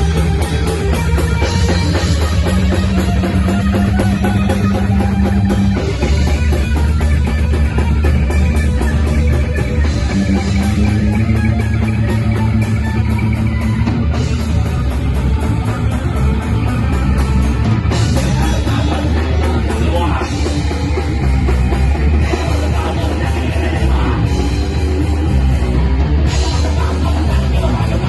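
Heavy rock band playing loudly: electric guitar, bass and drum kit together, with sustained bass notes and regular drum and cymbal hits.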